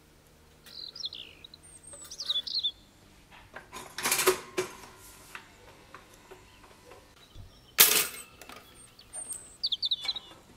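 Two loud clicks and clatters from a Russell Hobbs toaster as it is loaded and switched on, the first about four seconds in and the sharper one about eight seconds in. Short bursts of birdsong chirps from a sound effect come at the start and near the end.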